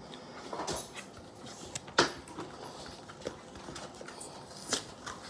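Foil trading-card booster packs and cardboard packaging being handled: light rustling and crinkling with a few sharp taps, the loudest about two seconds in.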